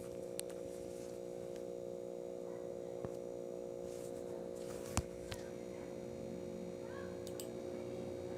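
CNC router spindle running with a steady whine, with a few light clicks and one sharper click about five seconds in.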